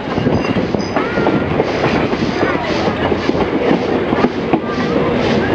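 Passenger carriages running along the track, their wheels clattering over the rails and the carriage bodies rattling, heard loud and close from an open carriage window. The sound is a steady rumble with many short knocks.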